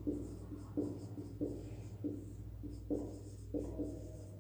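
Pen writing in short scratchy strokes, about two or three a second, over a faint steady electrical hum.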